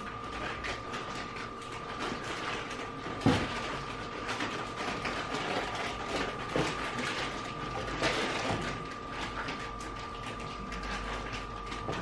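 Tensile testing machine running with a steady whine as it pulls a crimped cable held in TH83 pneumatic grips, with irregular small clicks throughout and one sharp knock about three seconds in. At this clamping pressure the cable slips in the serrated jaws.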